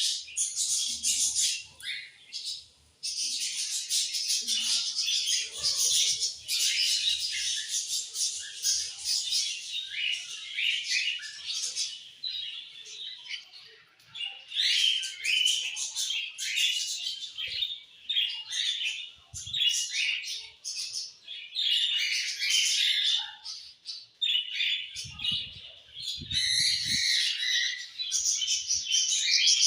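Several budgerigars singing together: a continuous warbling chatter of rapid chirps, squawks and whistles, with brief lulls.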